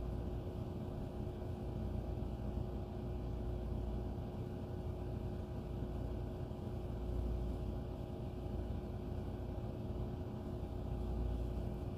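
Steady low background hum with a faint hiss and a few steady tones, unchanging throughout, like a fan or other running appliance; no speech.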